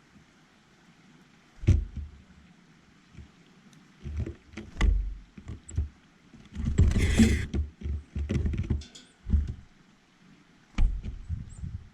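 Birds at a feeder close to the microphone: irregular knocks and taps as they land and peck, with a brief rustle about seven seconds in.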